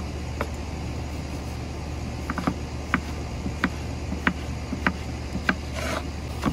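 Chef's knife chopping Roma tomatoes on a wooden cutting board: sharp knocks of the blade striking the board, about one to two a second, with a quick run of three about two seconds in.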